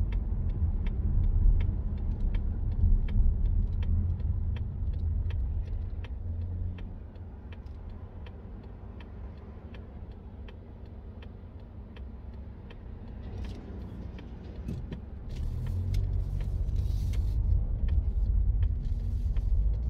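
Mazda CX-30's engine and tyre rumble heard from inside the cabin while driving, easing off for a few seconds in the middle and building again near the end. A light regular ticking, about two a second, runs through the first two-thirds.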